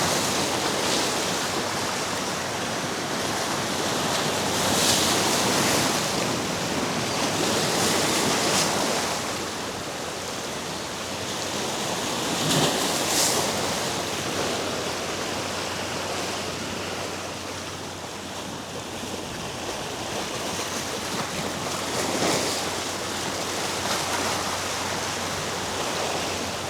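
Sea waves washing against a rock jetty, with wind. The wash of water swells and eases every few seconds.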